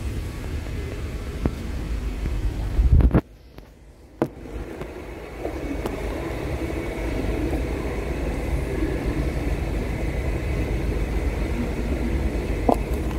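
Steady low vehicle rumble. It swells about three seconds in, then cuts out abruptly for about a second before resuming.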